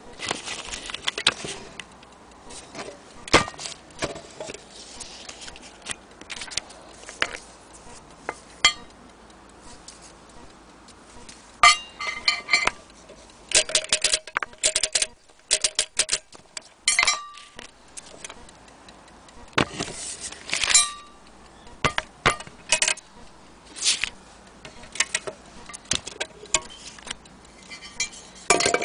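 Irregular metallic clinks, knocks and light scrapes from the brass case and metal parts of an antique pigeon-racing timing clock being handled and taken apart. Some knocks ring briefly.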